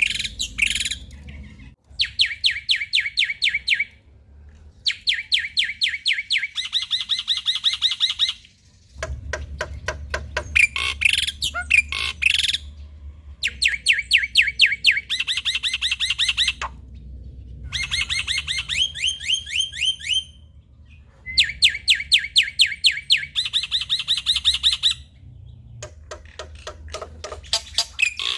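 Male black-winged myna (jalak putih) singing in repeated bouts of rapid, evenly spaced sharp notes, each bout a few seconds long with short pauses between, over a faint low hum.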